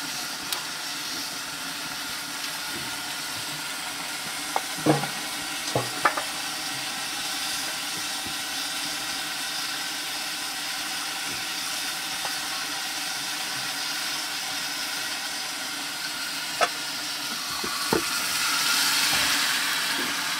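Steady sizzling hiss of mushroom curry cooking in a pot over an open wood fire, broken by a few sharp knocks and clicks. The hiss swells briefly near the end.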